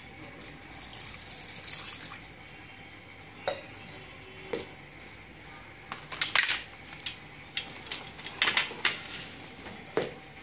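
Slate pencil sticks soaking in water in a tray, stirred by hand. Water splashes briefly at first, then the wet sticks clink sharply against each other and the tray in a quick run of clicks through the second half.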